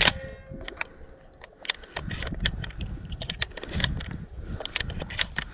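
Irregular sharp metallic clicks and clacks of shotgun shells being handled and loaded into a semi-automatic shotgun, opening with a bright ringing click, over a low rumble.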